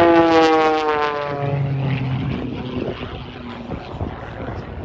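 Pitts S-1-11B aerobatic plane's piston engine and propeller passing by, the pitch dropping steadily as it goes past, then fading over the next few seconds.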